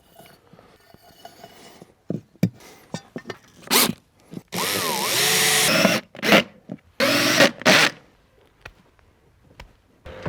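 A power drill runs in four short bursts, the longest about a second and a half, while a speaker mounting bracket is fixed to the wall. A few light knocks come before the drilling.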